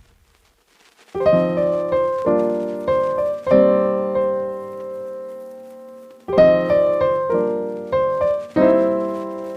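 Background music: a brief silence, then a slow solo piano passage of sustained chords.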